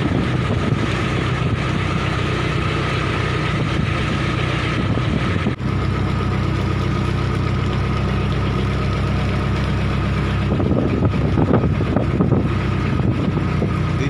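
Wooden fishing boat's inboard engine running steadily under way, with a low, even throb. About ten and a half seconds in, a louder stretch of rushing noise, water against the hull, lasts a couple of seconds.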